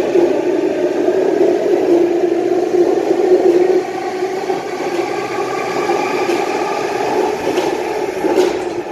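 Sydney Trains Waratah electric train at the platform, its electrical equipment giving a steady multi-tone whine over a rumbling hum. The sound drops about four seconds in and fades near the end.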